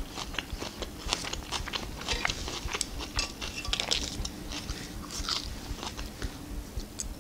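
Close-miked chewing and biting of food, with many small wet clicks and crunches.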